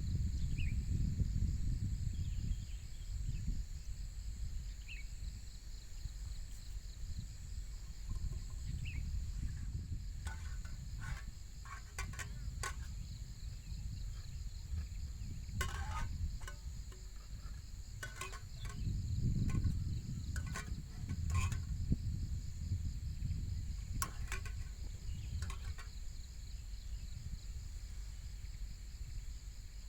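A steady high-pitched insect chorus over a low wind rumble on the microphone, which gusts at the start and again about two-thirds of the way through. Scattered sharp clicks and knocks come from about a third of the way in.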